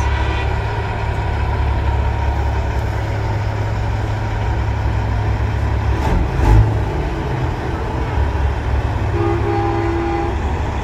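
Heavy diesel trucks rumbling past. A short thump comes about six and a half seconds in, and near the end a truck horn sounds a steady chord for about a second.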